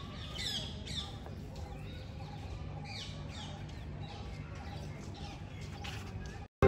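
Small birds chirping in the background: many short, high, falling notes, several a second, over a faint steady low hum. The sound breaks off near the end.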